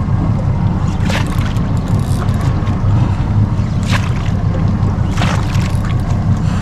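A steady low rumble with a few brief splashy sounds from a hooked fish, a red emperor, fighting near the surface beside the boat. The clearest splash comes about four seconds in.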